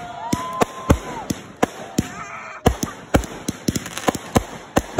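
Consumer fireworks cake firing a rapid, irregular run of shots, two or three sharp bangs a second, as shells launch and burst into crackling stars, with a short pause around two seconds in.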